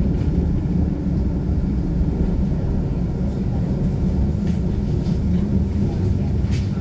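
Steady low running rumble heard inside a moving tram, the motors and wheels on the rails, with a couple of faint clicks or rattles in the second half.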